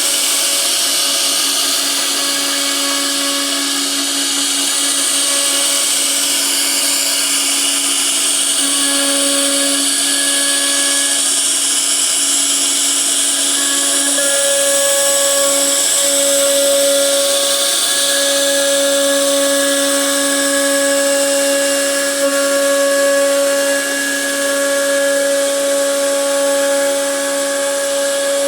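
CNC router spindle carving a wooden door panel: a steady high whine over continuous cutting noise, its tone swelling and easing every second or two as the bit's load changes.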